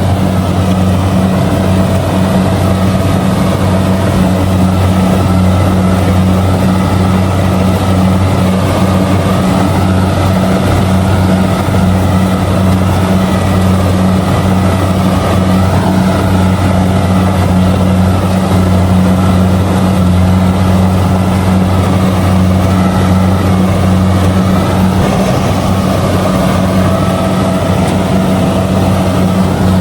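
Kubota DC-70G combine harvester running steadily while harvesting rice, a loud, even engine drone with no change in pitch.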